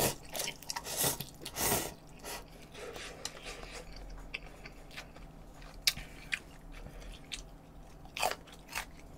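A person eating up close to the microphone: a couple of slurps of noodles in the first two seconds, then chewing with occasional sharp mouth clicks.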